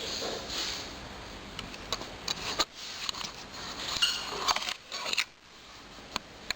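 A small caged pet moving about and making noise in its cage: scattered sharp clicks and short rustling, scraping bursts, thinning out to a few clicks near the end.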